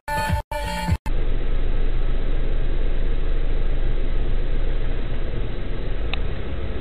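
A second of music, chopped by abrupt drop-outs, gives way to the steady engine and road noise of a car heard from inside the cabin, dull and muffled as from a dash cam. A faint tick sounds about six seconds in.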